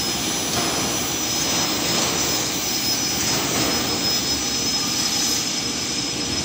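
Radio-controlled model jet dryer trailer blowing as it is driven around the track: a steady rushing whoosh with a constant high whine over it.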